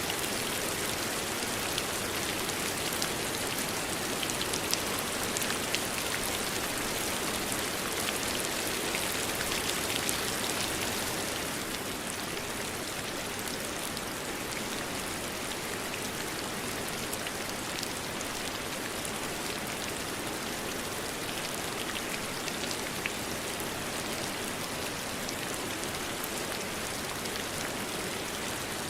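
Steady rain falling, a dense even patter with scattered individual drops ticking; it eases slightly about eleven seconds in.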